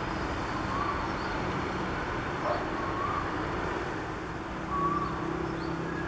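Steady hum of distant road traffic with a low drone, and a bird giving short, slurred chirps every second or two.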